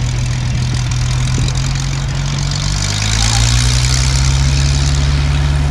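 Hawker Hurricane's Rolls-Royce Merlin V12 engine running steadily. Its pitch shifts about halfway through, and it grows louder, with more propeller hiss.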